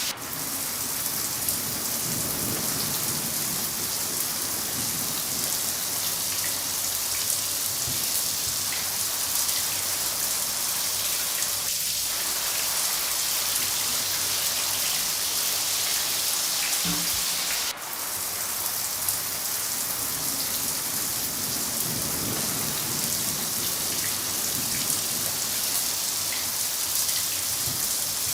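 Steady, heavy rain hissing on surfaces, with a low rumble of distant thunder twice. The sound dips suddenly for a moment about two-thirds of the way through.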